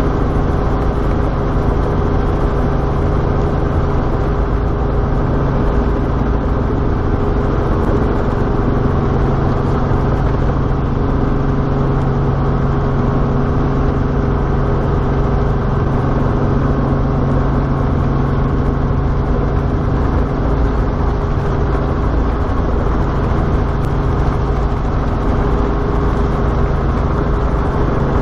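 Robinson R44 helicopter's piston engine and rotors running steadily while hover-taxiing, heard inside the cabin as a loud, even drone with a low hum.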